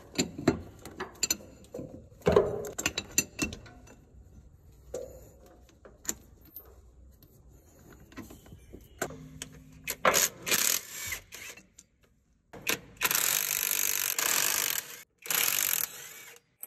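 Light metallic clicks and knocks of hand tools working on a truck's fittings, then a cordless impact wrench running on bolts of the gearbox housing in several bursts, the longest about two seconds near the end.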